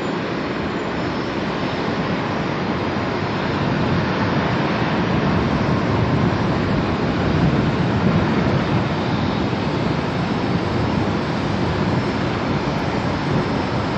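Boeing 737's twin jet engines at takeoff power during the takeoff roll, heard from afar as a steady, deep rumble that grows slightly louder partway through.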